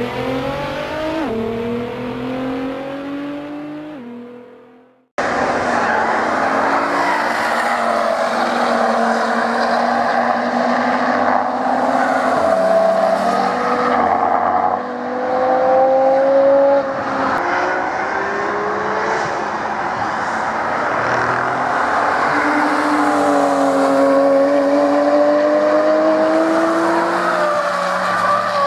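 Over the first few seconds a single car engine revs up and fades away. Then several cars pass one after another under hard acceleration, their engine notes rising and falling with gear changes and overlapping.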